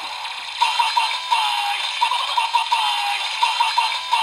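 Kamen Rider Revice DX Revice Driver toy belt, with the Rolling Vistamp set in it, playing its electronic finisher standby loop. A music track runs under a synthesized voice chanting "V-V-V-Vice! V-V-V-V-V-Vice!" in runs of quick syllables, each run ending in a longer falling "Vice".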